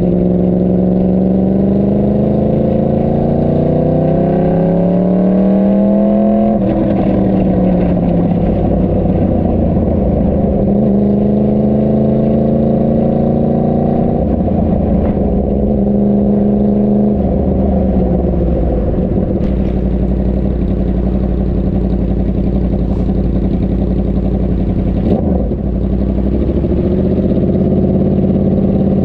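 Motorcycle engine accelerating through the gears: its pitch climbs, drops sharply at an upshift about six seconds in, climbs again to a second shift about halfway through, then eases off and runs at a steadier speed.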